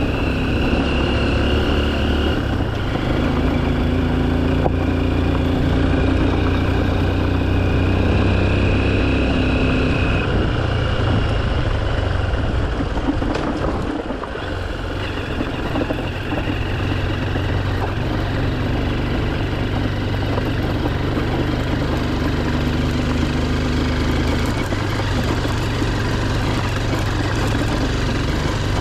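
Honda XR150L's single-cylinder engine running while under way, its pitch stepping up and down several times with throttle and gears, easing off briefly about halfway through.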